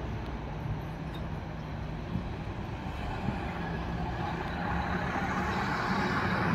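Scania R500 V8 diesel truck with an open-pipe exhaust running at low speed, its deep engine sound growing louder from about four seconds in as it draws closer.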